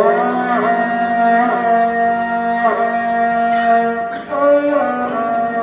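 Sarangi playing a melody in long bowed notes with smooth slides between pitches, likely the lehra that keeps the time cycle for the tabla solo.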